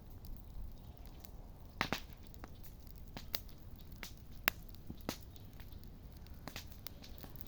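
Wood campfire crackling, with irregular sharp pops from the burning wood, the sharpest about four and a half seconds in.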